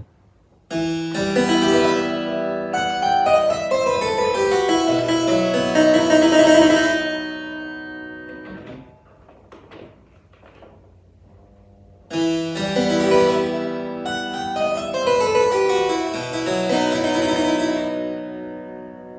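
Italian single-manual harpsichord playing a short phrase twice, with a pause of a few seconds between, to demonstrate how its registers (stops) change the tone.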